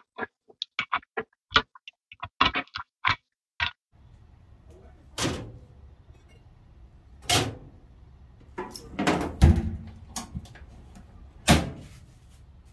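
A rapid string of short sharp clicks and scrapes in the first few seconds. Then a handful of loud metal knocks and bangs as a rusty pressed-steel toy van body is set on the wire grate of a sandblasting cabinet and the cabinet door is swung shut.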